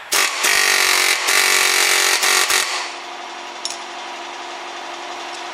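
Pneumatic impact wrench on the hub nut hammering for about two and a half seconds in a few short bursts, drawing the new drive shaft's inner joint into the gearbox. After it stops, a quieter steady mechanical hum carries on.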